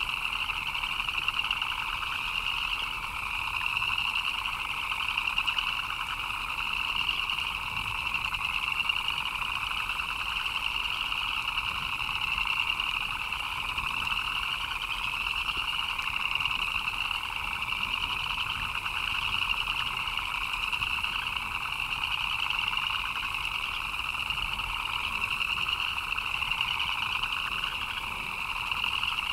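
A dense, steady chorus of many frogs calling at once, with a higher-pitched layer of short rising chirps over a lower layer of calls.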